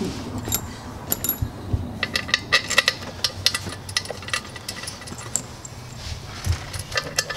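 Small metal clinks and taps of bolts being handled and set into an aluminium upper intake manifold, many light clicks in quick, irregular succession.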